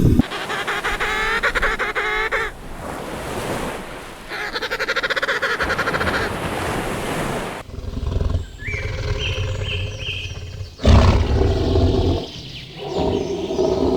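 Farm poultry calling in a string of short clips that cut abruptly one into the next: rapid pulsing calls, then high short chirps about nine seconds in.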